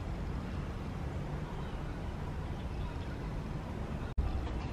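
Low, steady rumble of wind buffeting the microphone, with a faint hiss above it. It drops out for an instant near the end.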